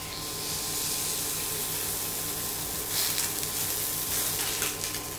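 Raw ribeye steak sizzling as it sears in a hot frying pan: a steady hiss with crackles and pops, sharper about three seconds in.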